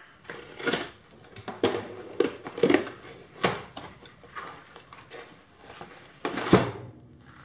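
A plastic Priority Mail mailer being torn open and a folded cardboard wrap pulled out and unfolded: irregular crinkling, tearing and scraping handling noise, with the loudest burst shortly before the end.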